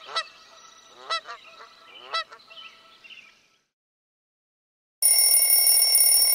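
Three short rising calls in the first two seconds, then a pause. About five seconds in, a phone alarm starts ringing loudly, a steady chord of several high tones.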